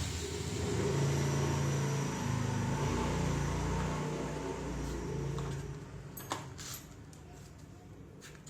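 A motor engine running steadily with a low hum. It fades away about six seconds in, and a couple of sharp clicks follow.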